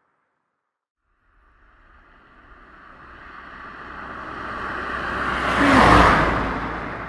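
A rushing whoosh with a low rumble beneath it, building steadily for about four seconds to a loud peak and then fading away, like something passing close by.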